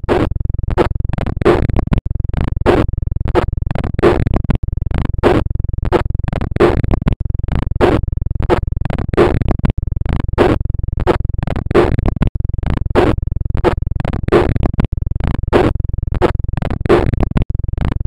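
Looped synthetic space-sound track: a steady low rumble under sharp, scratchy pulses about three a second, the same pattern repeating roughly every two and a half seconds.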